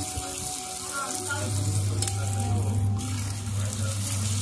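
Desi ghee sizzling on a hot iron tawa as a paratha fries, the pan running a little too hot. There is a steady low hum underneath, and a metal utensil clicks sharply against the pan twice, about two and three seconds in.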